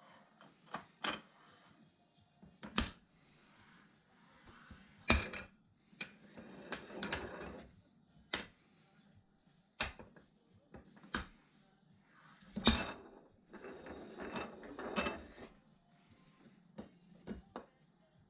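Metal tools and parts being handled: about a dozen sharp clanks and knocks at uneven intervals, with short scraping rattles between them.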